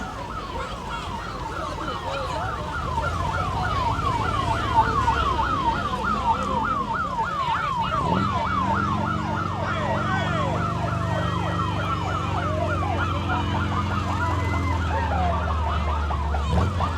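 Parade recording: a siren yelping, its pitch sweeping up and down about three times a second over crowd noise. The yelp fades about eight seconds in, as a low, steady sound of several held tones comes up.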